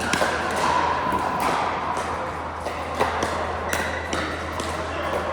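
Pickleball paddles striking hard plastic balls and the balls bouncing: a run of sharp pops and taps at uneven intervals, the strongest about three seconds in.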